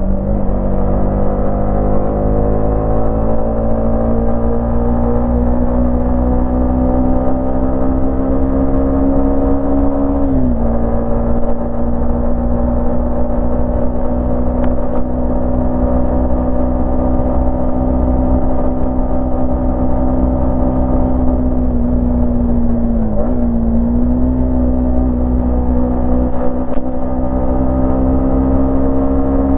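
Yamaha MT-15 single-cylinder engine and exhaust running under way, its note slowly rising, with a brief dip in pitch about ten seconds in and again near twenty-three seconds.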